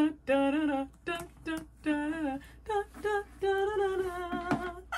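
A woman humming a wordless tune to herself in several short phrases, ending on a longer held note, over the rustle of a cotton dust bag being pulled off a handbag, with a sharp click about four and a half seconds in.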